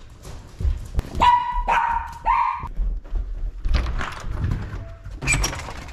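A dog barks three times in quick succession, about a second in, over footsteps. Near the end a door latch clicks as the door is opened.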